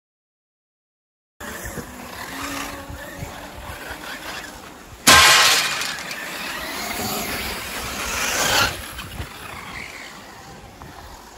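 Electric RC cars running on a dirt track, motors and tyres steady. About five seconds in comes a sudden loud crash sound effect, which fades over a few seconds and then cuts off abruptly.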